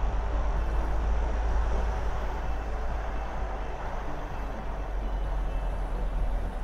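Car engine and tyre noise heard from inside the cabin while driving uphill on a dirt track: a steady low rumble.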